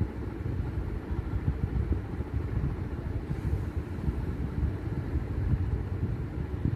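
A low rumble of background noise that wavers in loudness.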